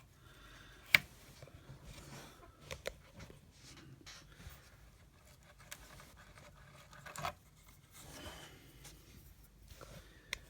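Handling noise from working on a valve oscilloscope: a sharp click about a second in, then a few fainter clicks and light knocks.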